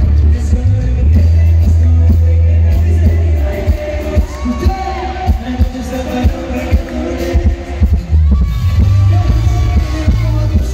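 Live Latin pop boy-band performance: male voices singing into microphones over loud amplified backing music with a very heavy bass, as heard from the audience.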